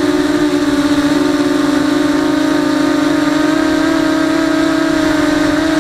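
Brushless motors and propellers of an FPV mini quadcopter whining at a steady, nearly constant pitch.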